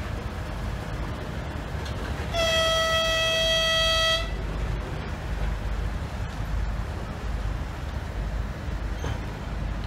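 2M62 twin-section diesel locomotive sounding its horn: one steady single-pitched blast of nearly two seconds, starting about two and a half seconds in and cutting off sharply, over the continuous low rumble of the running locomotive.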